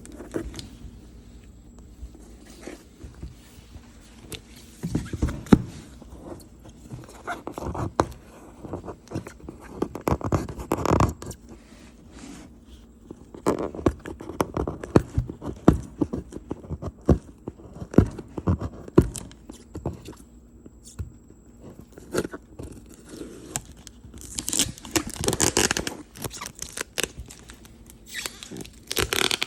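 A shipping box being opened by hand: scraping, rustling and tearing of tape and cardboard, with scattered knocks and clicks, and two louder, hissier stretches of handling near the end.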